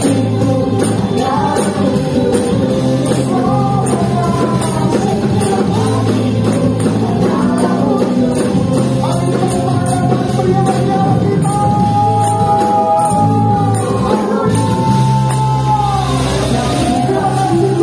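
Live praise-and-worship song: singers over a full band, with tambourines jingling in time to a steady beat.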